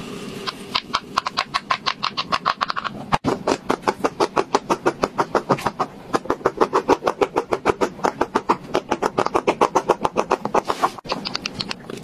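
Silicone push-pop bubbles on a large pop-it board, pressed by fingers one after another: a steady run of quick pops, about six a second.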